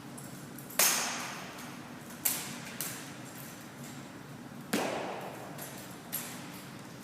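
Drill rifles being handled in a rifle drill routine: five sharp knocks and slaps, spaced irregularly, the first the loudest, each ringing out briefly in a reverberant hall.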